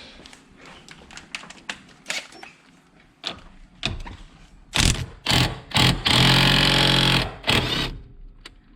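Small metallic clicks of a socket being fitted, then a cordless power tool on a 19 mm socket firing in a few short buzzes and one steady run of about a second, loosening the steering-wheel nut.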